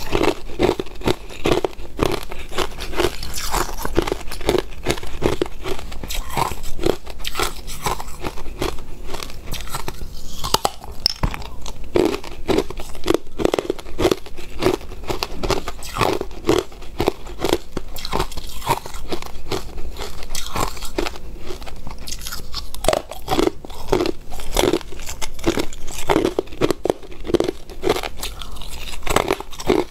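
Hard clear ice being bitten and chewed by a person: a continual run of sharp crunches and cracks as the ice breaks between the teeth.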